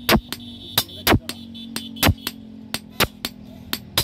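Hammer blows on iron at a blacksmith's anvil while forging a boti blade: heavier strikes about once a second with lighter taps in between, over a faint metallic ring.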